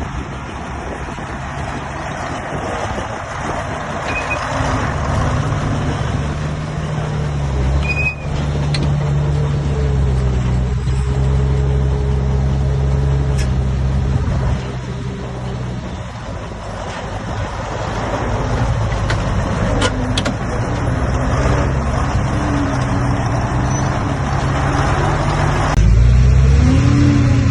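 Heavy diesel engines of earthmoving machines, a bulldozer and dump trucks, running under load. The engine note dips about halfway through and rises sharply near the end.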